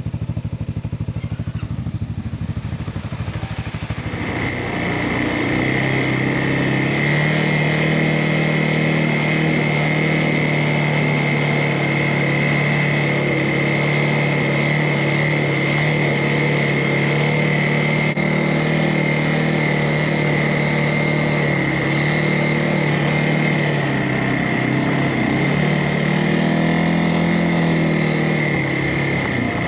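CFMOTO ATV engine running while riding, picking up speed about four seconds in and then pulling at a steady pace with a high whine over the engine note. The revs dip and climb again near the end.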